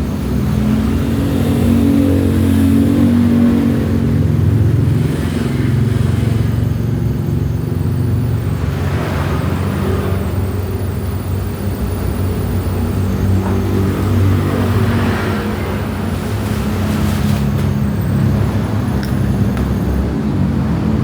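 A motor engine running steadily, its pitch drifting up and down.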